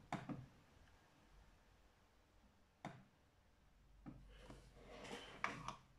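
Near silence with a few faint clicks from someone working a laptop: one right at the start, a single sharp click about three seconds in, and a short run of clicks near the end.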